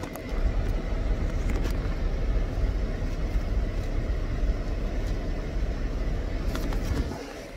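Steady low rumble inside a car's cabin, with a few brief clicks.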